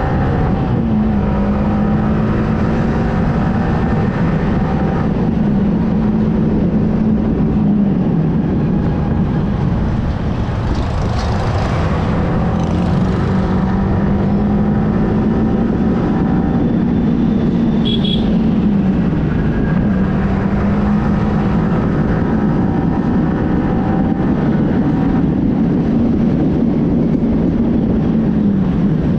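Yamaha R15M's single-cylinder engine running at steady cruising revs under heavy wind rumble on the microphone. The engine pitch dips and climbs again a few times, and a short high beep sounds about two-thirds of the way through.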